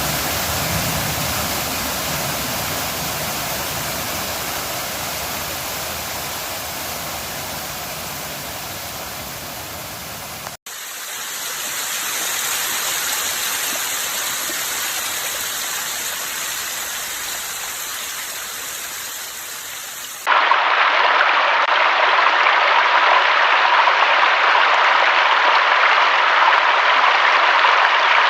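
Steady rushing of flowing water, in three stretches joined by abrupt cuts: a brief dropout about ten seconds in, then a sudden jump to a louder, hissier stretch about twenty seconds in.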